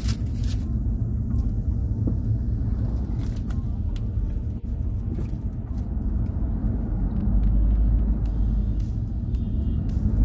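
Low, steady rumble of engine and road noise heard inside a moving car's cabin, with a few faint clicks.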